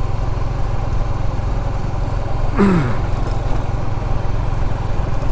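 Honda CBR motorcycle's engine running steadily at low cruising speed, heard from the rider's seat with wind noise. A brief falling tone cuts in about halfway through.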